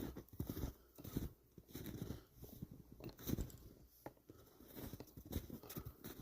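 Footsteps crunching through deep fresh snow in a steady walking rhythm, about two steps a second.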